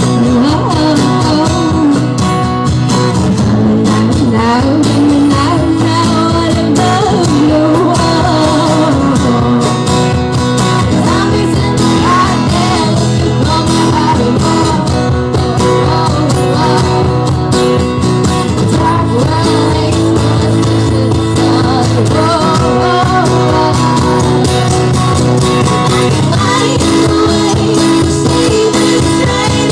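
A band playing rock music: guitars over bass and drums at a steady, loud level, with a lead line that slides up and down through the passage.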